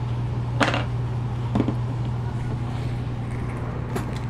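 A few light knocks, three in all, as plastic resin-casting molds are lifted and set down on a wooden workbench, over a steady low hum.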